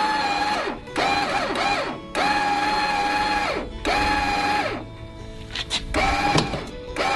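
Electric tongue jack motor lowering a travel trailer's coupler onto the hitch ball, in about five short runs. Each run is a steady whine that drops in pitch as the motor stops. A few sharp knocks come near the end as the coupler settles onto the ball.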